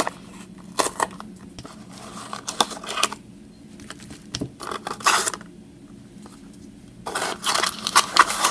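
A small cardboard toy box being opened by hand: the flaps are pulled apart and the card rubs and scrapes in several short bursts, the strongest about five seconds in and near the end.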